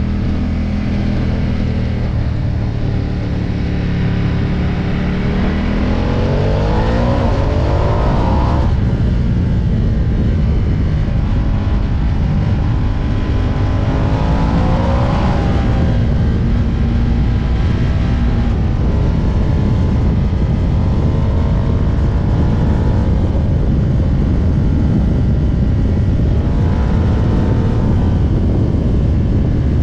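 Ducati Diavel's L-twin engine pulling hard under acceleration. Its pitch rises through the revs about seven seconds in and again about fifteen seconds in, over heavy wind rush on the microphone at speed.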